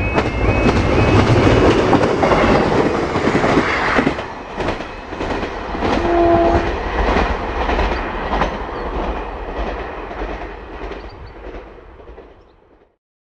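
Class 158 diesel multiple unit running on the line, its wheels clicking rhythmically over the rail joints, with a short single horn note about six seconds in. The sound fades out near the end.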